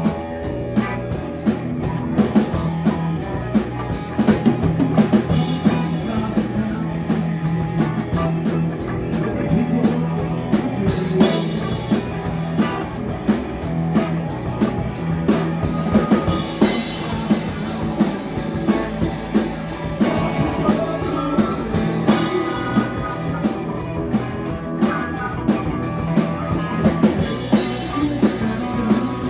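Live rock band playing: drum kit keeping a steady beat under guitar and bass.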